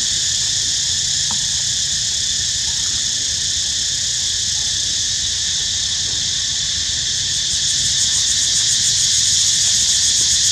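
Loud, steady high-pitched drone of an insect chorus, which swells and takes on a fast pulsing flutter about three-quarters of the way through.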